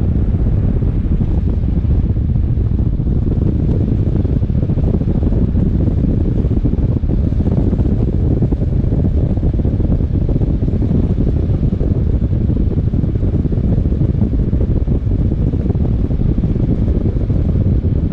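Wind buffeting the microphone of a motorcycle riding at road speed, a steady low rumble with the ride's road and engine noise buried underneath.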